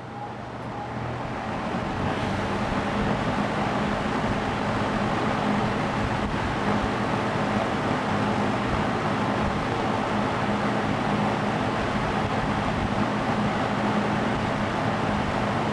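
Vintage Lakewood P-20 20-inch box fan on its high speed. The rush of air builds over the first couple of seconds as the blades come up to speed, then holds steady over a low motor hum.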